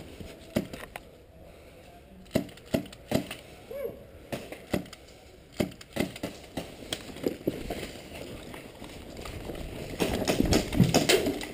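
Airsoft pistol firing single shots, a dozen or so sharp cracks at uneven gaps of about half a second. About ten seconds in, running footsteps and gear rustling take over.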